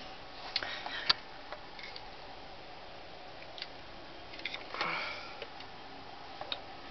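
Light handling noise: a few scattered clicks and knocks, and a short breathy swish about five seconds in.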